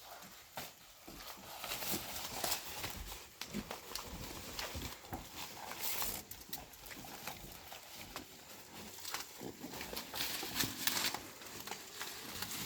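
Pigs eating freshly pulled corn plants: irregular crunching and chewing with rustling of the stalks and leaves.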